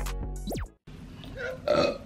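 A hip-hop beat ends with a quick rising sweep and cuts off under a second in. Then, near the end, a woman burps once, loudly.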